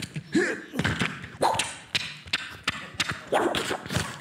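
Vocal sound effects made with the mouth into a handheld microphone: a quick, irregular string of thumps, clicks and short swooping whooshes, like cartoon hits and movements.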